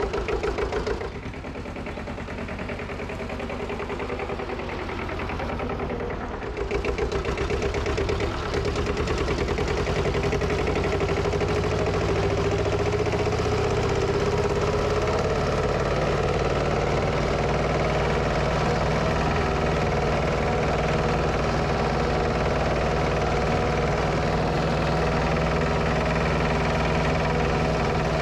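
Lanz Alldog A 1806's two-cylinder diesel engine pulling the tractor along. It dips briefly about a second in, then its pitch climbs slowly as the engine gathers speed over the next ten seconds or so, and after that it runs steadily.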